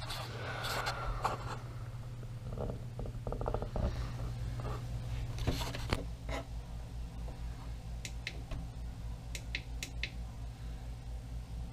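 Steady low hum, joined about halfway by a pulsing low throb, under scattered clicks, scrapes and a few sharp ticks of hands working on metal parts.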